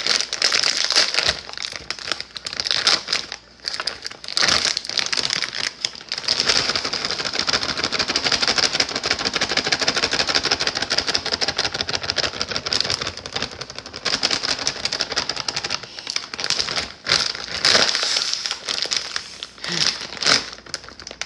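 Plastic bag of shredded mozzarella crinkling and rustling as the cheese is shaken and poured out of it, stopping and starting several times.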